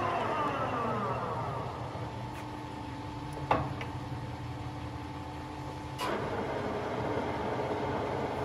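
Nuttall Generation 500 centre lathe's headstock gearing whining down in pitch as the chuck coasts to a stop, while its motor keeps humming steadily. A sharp clunk from a lever comes about three and a half seconds in, and another about six seconds in as the spindle is engaged and the gearing runs up again.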